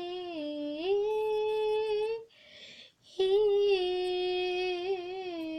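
A young girl singing unaccompanied in two long held notes with a breath between them. The first note steps up in pitch about a second in; the second wavers slightly and slides gently down.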